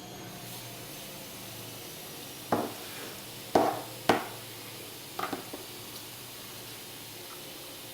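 A few short knocks and clacks of hard objects, the two loudest about half a second apart near the middle, over a steady low hum.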